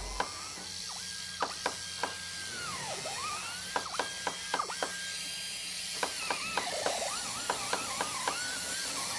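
Hot glue gun being worked: irregular clicks from the trigger and feed mechanism, with short squeaky glides rising and falling in pitch between them.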